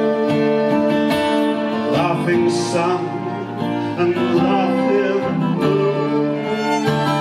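Live music in an instrumental passage: a string quartet of violins and cello holds sustained chords over an electric guitar.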